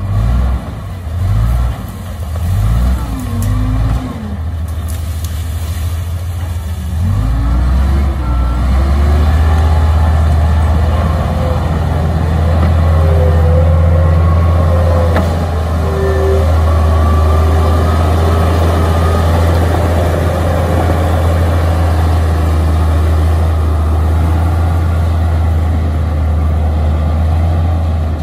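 Komatsu D53A crawler bulldozer's diesel engine revving in short pulses, then from about seven seconds in running steadily under heavy load as the blade pushes earth, with some wavering higher squeals over it.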